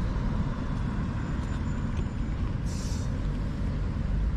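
Steady low outdoor rumble, with a brief rustle about three seconds in.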